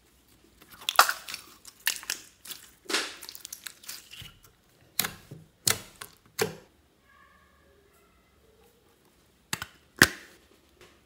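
Clear slime studded with beads being stretched and pressed by hand, giving sticky crackling squelches, then a series of sharp pops. There are two more sharp pops near the end.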